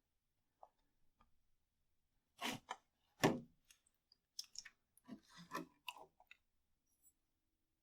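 A few short scrapes, rubs and clicks of hands at work with seedling pots and soil. The loudest is a single scrape about three seconds in, followed by a busy cluster of smaller ones.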